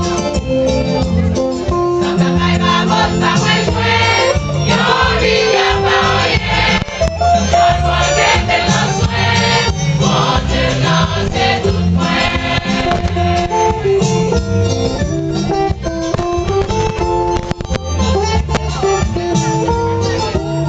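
Choir singing gospel music over instrumental backing with a steady low beat.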